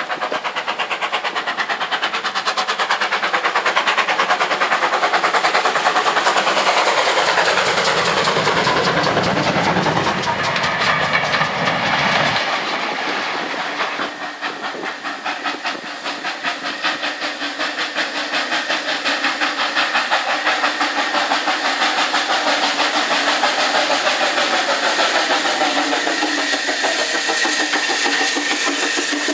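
GWR steam railmotor No.93 running with its auto trailer. Its exhaust beats in a quick, even rhythm, with steam hissing and the coaches' wheels clicking over the rail joints.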